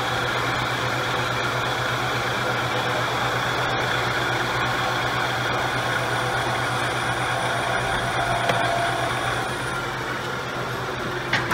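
Metal lathe running under power feed while the tool takes a light taper-turning cut a couple of thousandths deep: a steady mechanical hum over a low motor drone.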